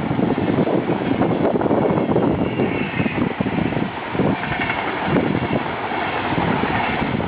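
A train passing close by at speed: a loud, steady rush of wheels on rails, with a faint wavering whine higher up.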